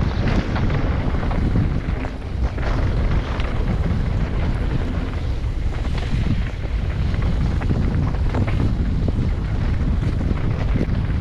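Wind buffeting a helmet-mounted camera's microphone on a fast mountain-bike descent, over a low rumble of knobby tyres on a dirt trail with scattered knocks from bumps.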